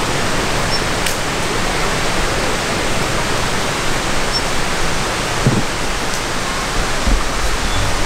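Steady rush of a mountain stream flowing close by, with a few soft low knocks near the end.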